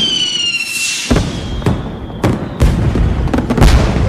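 Fireworks going off: a whistle that falls slightly in pitch and fades about a second in, then about half a dozen sharp bangs with deep booms, roughly every half second.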